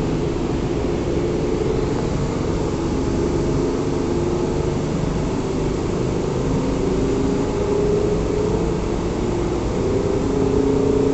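Machinery running on a machine-shop floor: steady mechanical noise with humming tones that shift in pitch every second or two.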